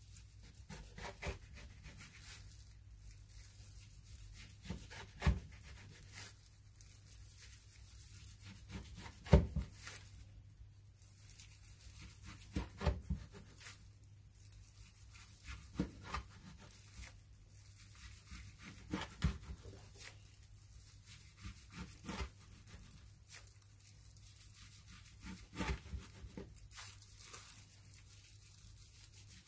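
Chef's knife slicing through gimbap rolls wrapped in dried seaweed, the nori tearing softly under the blade, with sharp taps at irregular intervals as the blade meets the plastic cutting board.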